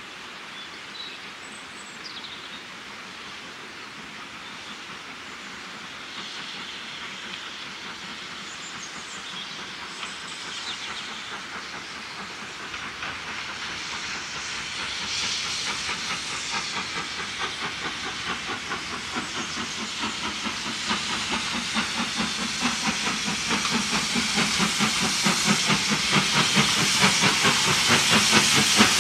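LNER B1 4-6-0 No. 61264, a two-cylinder steam locomotive, approaching under steam with its train. Its exhaust makes a quick, even rhythm of chuffs over a hiss of steam, faint at first and growing steadily louder as it nears; the beats stand out clearly from about halfway.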